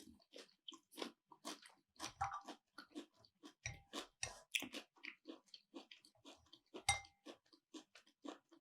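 A man chewing food close to the microphone, with a string of short, soft crunching and mouth-clicking sounds, a few each second.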